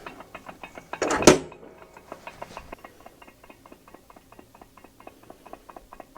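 A sharp clank about a second in, then a steady light ticking at about five clicks a second, from a Wood-Mizer LX50 Super sawmill's idler pulley, just blamed for a noise like a thrown blade.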